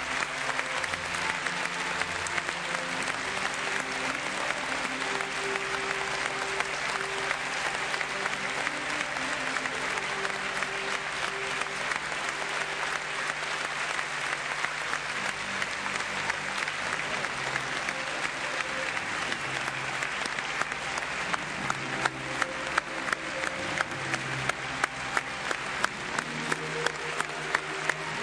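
A large audience applauding steadily, with music playing underneath. About two-thirds of the way through, the clapping falls into a shared rhythm of about two claps a second.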